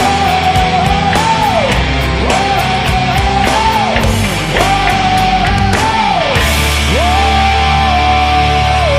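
Loud heavy rock music soundtrack: a high lead line holds a note, then slides down, repeating about every second and a half over drums. The drums drop out about two-thirds of the way through, leaving a held chord.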